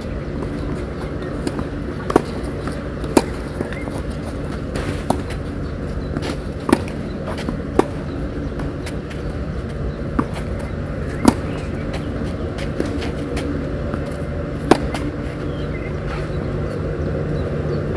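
Tennis ball struck back and forth in a rally on a clay court: sharp racket hits every one to three seconds, some louder than others, over a steady low hum of background noise.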